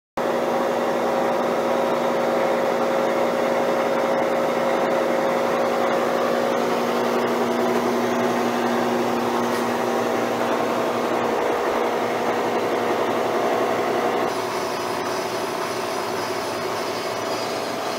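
Schaublin SV52 milling machine running, its milling cutter taking a roughing pass along a cast-iron straightedge casting: a steady machine sound with a hum of several steady tones. Late on it changes to a slightly quieter sound with a higher whine.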